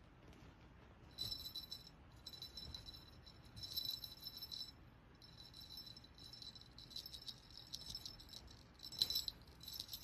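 Metallic jingling in repeated bursts of about a second each, with the loudest burst near the end.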